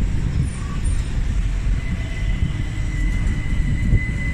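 Train running through the station: a steady low rumble, with a thin high whine coming in about halfway through.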